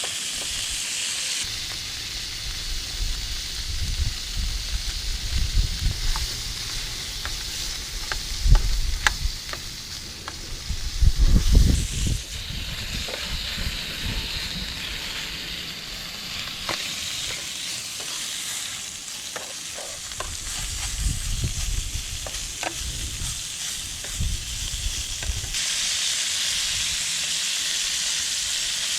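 Two small acara frying in hot oil in a pan, a steady sizzle that gets louder near the end. A few light clicks and several low rumbles come and go over it, the loudest rumble about 11 seconds in.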